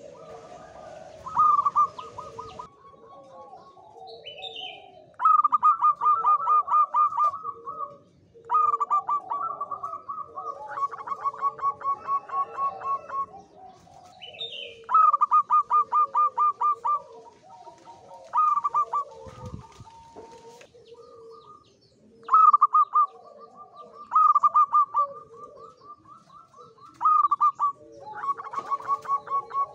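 Male zebra dove (perkutut) singing in high breeding condition: bursts of rapid, pulsed cooing notes that start loud and trail off, repeated every few seconds. Fainter chirps of other birds sound behind.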